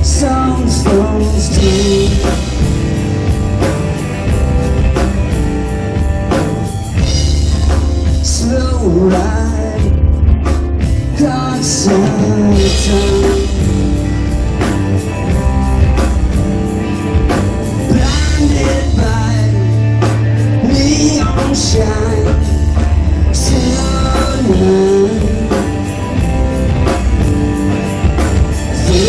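Live rock band playing an instrumental stretch between vocal lines, with a full drum kit and electric guitar.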